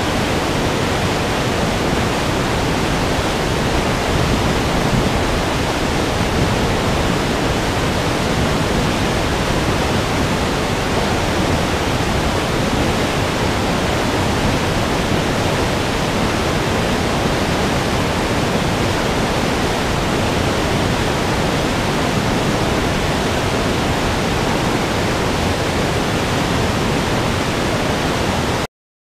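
Large waterfall's steady, loud rush of falling water, an even noise with no rhythm or let-up; it cuts off suddenly near the end.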